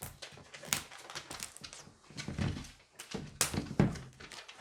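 Toy packaging being handled and pulled at: a run of irregular crinkles, clicks and knocks from plastic and cardboard as the box is worked open.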